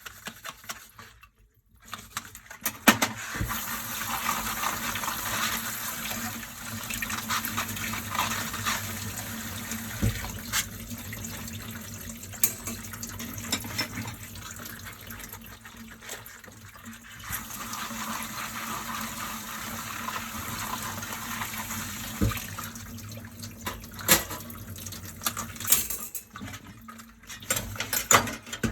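Dishes being washed by hand at a kitchen sink: a tap runs steadily from about two seconds in, with scattered sharp clinks and knocks of dishes being handled.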